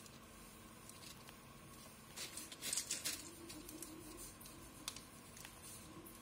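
Black plastic SMD carrier tape being slid and pressed into a plastic tape holder by hand: light rustling and small clicks, with a louder scratchy rustle about two to three seconds in and a single sharp click near five seconds.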